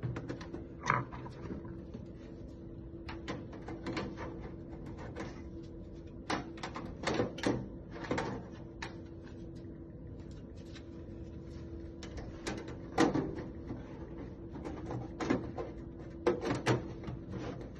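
Steel side panel of a Dell desktop tower being laid on the case and slid into its rails: scattered metallic knocks, clicks and scrapes, the loudest about 13 seconds in.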